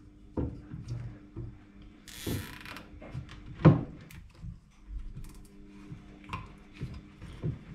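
Timber pieces knocked and handled on a wooden workbench as a makeshift stand is fitted together, a string of sharp clicks and knocks with the loudest just before four seconds in. About two seconds in comes a short ratcheting zip, a cable tie being pulled tight around the wood. A faint steady hum runs underneath.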